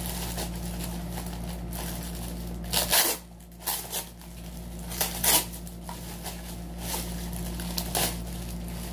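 Clear plastic bag crinkling and rustling as it is pulled off a new bicycle helmet, with several louder sharp crackles about three seconds in, around five seconds and near the end.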